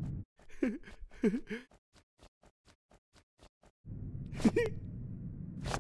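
A cartoon character's short wordless vocal sounds: two quick ones about a second in and another near the end. Between them run faint, evenly spaced ticks, about four a second, and a low hum comes in near the end.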